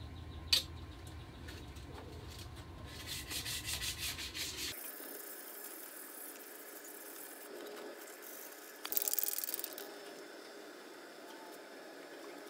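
Hand sanding with 220-grit sandpaper on the red-painted hood of a 1958 Johnson Sea Horse outboard, in short spells of quick back-and-forth scratchy strokes: a light sanding between coats to smooth the first coat of paint. A sharp click sounds about half a second in.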